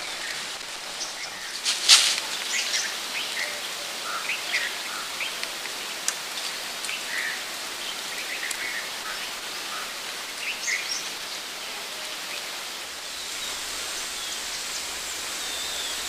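Many short bird chirps and calls scattered over a steady hiss, with one brief, loud noisy burst about two seconds in.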